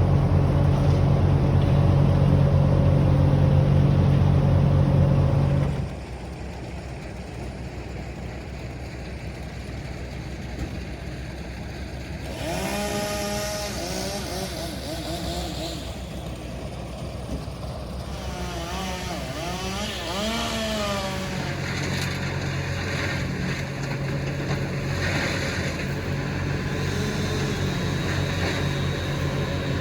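Engine-powered equipment running: a heavy engine runs steadily and drops back about six seconds in, then in the middle an engine's pitch rises and falls repeatedly, and the heavy steady engine sound returns for the last third.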